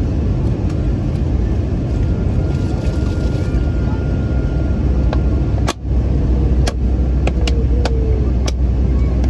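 Airbus A321 cabin noise from a window seat while descending on approach: a steady deep rumble of engines and airflow. A brief dropout about halfway through, then several sharp clicks over the next few seconds.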